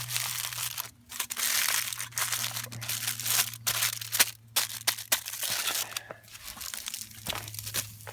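Tin foil being crinkled and scrunched in irregular bursts as it is folded around kippers into a cooking parcel.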